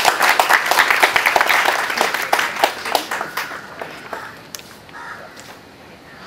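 Small audience applauding. The clapping is dense for the first three seconds or so, then thins to a few scattered claps and dies away.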